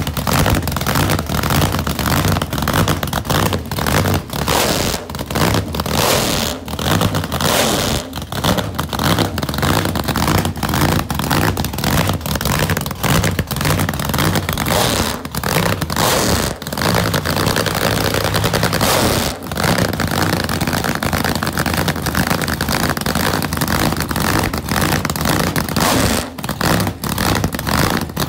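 Nitro-burning 8-71 supercharged, fuel-injected 430 Buick V8 idling loud and choppy in a cackle, the uneven, crackling firing coming straight out of short open exhaust headers.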